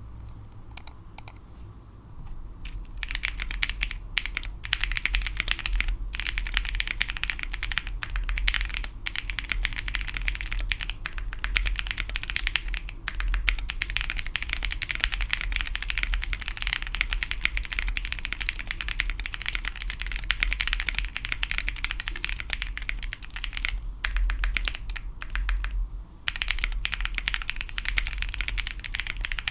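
Wind X custom mechanical keyboard with lubed Cow switches, a POM plate and GMK keycaps being typed on: a few separate key presses, then fast continuous typing from about three seconds in, with a couple of brief pauses near the end. The board sounds a little bit muted.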